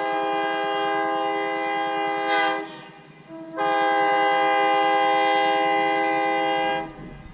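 Diesel locomotive air horn sounding two long blasts of a held chord from an approaching train, each about three seconds long with a short break between them.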